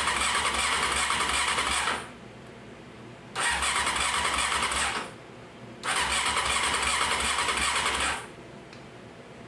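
1995 Honda CBR600 F3's inline-four engine being turned over on the electric starter in three bursts of one to two seconds each, without firing. The cranking is what the mechanic takes for a compression issue on one of the cylinders.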